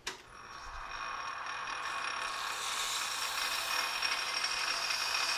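Precision Matthews 1127 metal lathe switched on with a click and spinning up to a steady whine. Emery cloth is held against the turning workpiece, and the hiss it makes grows over the first couple of seconds.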